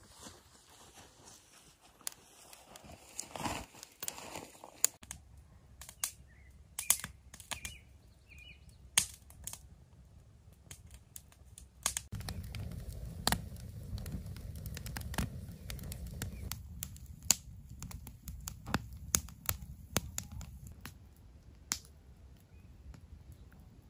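Wood campfire of split logs and dry grass kindling in a barrel fire pit, crackling with irregular sharp pops. A low steady rumble comes in under the crackling about halfway through and fades out a few seconds before the end.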